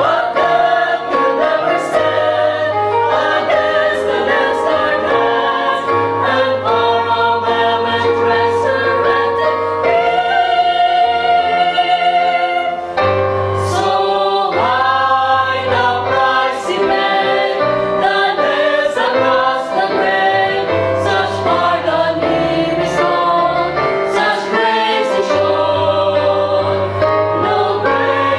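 Mixed youth choir of girls and boys singing a gospel song in several parts, with instrumental accompaniment beneath the voices.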